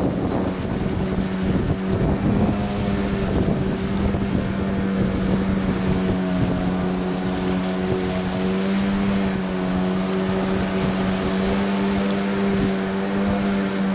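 Small boat's outboard motor running steadily at one constant pitch, with water rushing and splashing past the hull.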